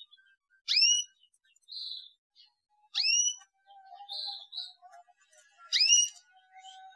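A repeated 'cuit' chirp, a quick upward-sweeping whistle, sounding three times about two and a half seconds apart in an identical looped pattern: the stimulus call played to prompt a juvenile canary to learn to sing. Fainter short chirps come in between.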